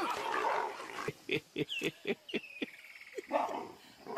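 Animal calls: a noisy stretch, then a quick string of short, sharp yelping calls about a second in, one sliding down in pitch, followed by a thin held tone and another call near the end.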